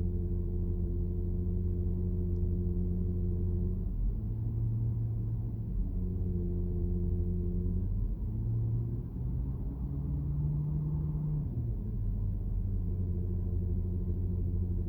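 Porsche Cayenne Turbo's PDCC (Dynamic Chassis Control) hydraulic system giving its signature whine and hum inside the cabin: a steady droning tone with several pitches. The pitch shifts between about four and six seconds in, and again between eight and twelve seconds. The uploader says this is normal and not a fault, and puts it down to the lack of a pulsation damper in the PDCC system.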